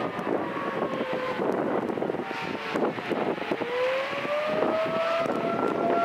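Federal Signal 2T22 outdoor warning siren winding down in pitch, then rising again from about three and a half seconds in and levelling off near the end: the fall-and-rise of the attack signal. Heavy wind noise on the microphone.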